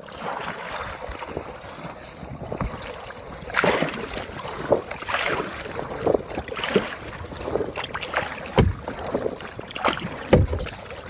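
Kayak paddle splashing and dripping water in irregular strokes, with wind buffeting the microphone in a few low thumps in the second half.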